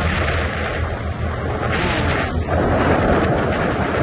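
Heavy wind noise rushing over the microphone of a moving adventure motorcycle, swelling in gusts, over the steady low drone of the bike's engine.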